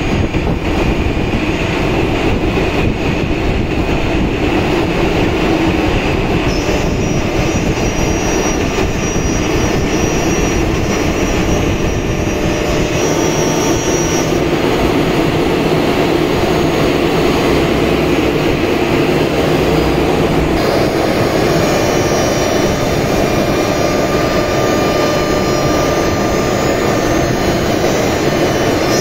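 Semac SM 1325B1 single-spindle CNC router cutting a board panel: a loud, steady machine noise of the spinning spindle and cutter working through the sheet.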